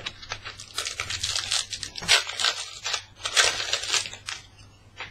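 A Panini Adrenalyn XL trading-card pack wrapper being torn open and crinkled, with the cards handled, in three or four bursts of rustling and crackling.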